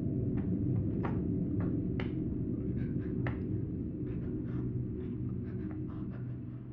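Low, dark droning rumble with scattered crackling clicks, fading out near the end, typical of a horror film's ambient sound design.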